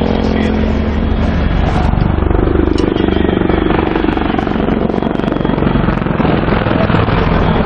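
Mi-28N attack helicopter flying a low display pass overhead: a loud, steady rapid chop of the main rotor blades over the hum of its engines.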